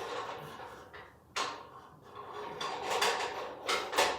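Powder-coated aluminium drone-frame parts sliding and knocking together as they are fitted by hand: a few short scrapes and clunks.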